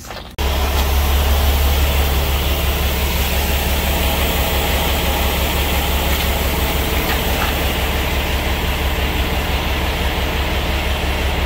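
Air-ride suspension of a 2012 Freightliner Cascadia tractor being dumped: a loud, steady rush of escaping air that starts suddenly about half a second in, lowering the fifth wheel.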